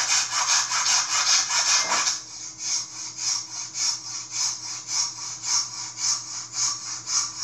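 Silky Big Boy folding pull saw cutting through a thick branch, heard through computer speakers: fast rasping strokes at first, then a steady rhythm of about two strokes a second from about two seconds in.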